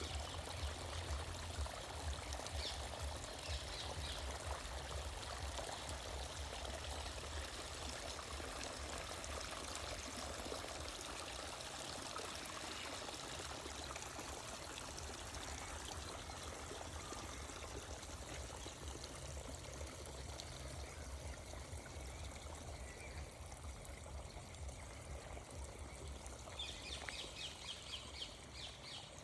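Water running and pouring steadily, like a small stream or cascade. A few high bird chirps come through about three seconds in and again near the end.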